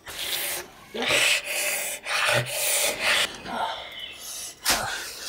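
A man's heavy, rasping breaths and gasps, a few of them breaking into short strained groans, as he pants in pain.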